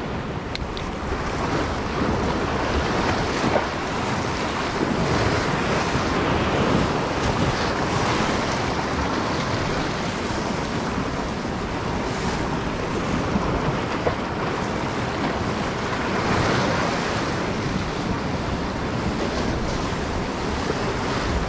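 Sea surf washing in, with wind buffeting the microphone; the noise swells and eases several times.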